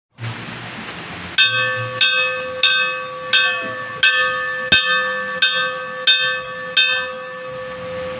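A bell struck about nine times in steady succession, roughly three strokes every two seconds, its tone ringing on between strokes. It starts about a second and a half in.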